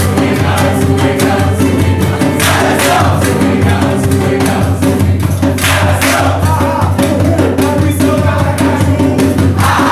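Upbeat Brazilian-style song with group singing over a steady percussion beat.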